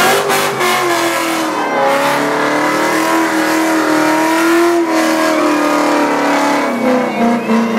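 Ford Mustang doing a burnout: the engine revs up in the first half second and is then held at high revs, wavering a little with a brief dip near five seconds, while the rear tyres spin and smoke on the asphalt.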